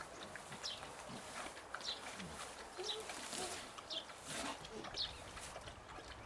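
Birds chirping: a string of short, high, falling chirps, one every half second to a second.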